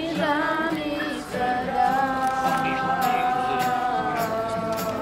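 Music with singing: after a few short wavering notes, a voice holds one long note from about a second and a half in almost to the end.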